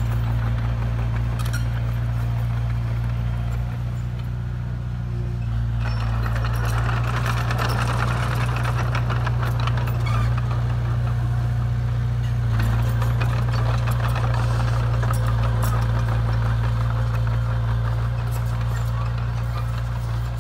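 Diesel engine of a Komatsu D20A crawler bulldozer running steadily while the dozer works soil, a low even drone with a rougher rattle laid over it for much of the time.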